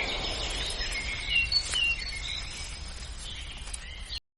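Several birds chirping in short, high whistled notes over steady outdoor background noise; the sound cuts off suddenly near the end.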